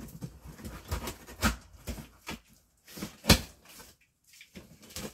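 Cardboard shipping box being opened by hand: a string of short scrapes, knocks and rustles of cardboard flaps and packing tape, the loudest about three seconds in.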